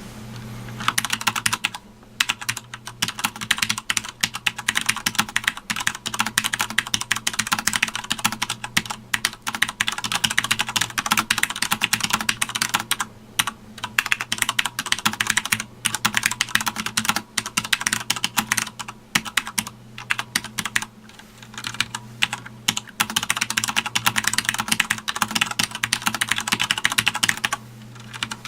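Fast continuous typing on a Sanwa Supply SKB-MK2BK mechanical keyboard: a dense stream of key clicks, starting about a second in, with a few brief pauses, over a faint low steady hum.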